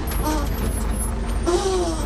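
Low, steady engine rumble of heavy construction machinery, with short snatches of a man's voice near the start and again about one and a half seconds in.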